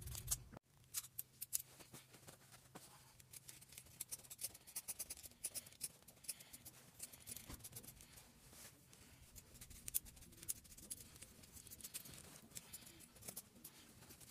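Steel scissors cutting through thick denim jeans: a long run of irregular, sharp snips and crunches as the blades close on the heavy cloth.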